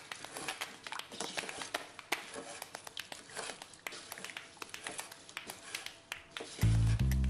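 Wooden spoon stirring rice, peas and water in a rice cooker pot, with irregular light clicks and scrapes. Background music with a deep bass line comes in near the end.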